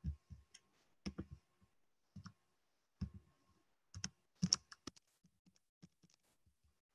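Computer keyboard keys clicking: scattered, irregular keystrokes, a few a second, thinning out toward the end.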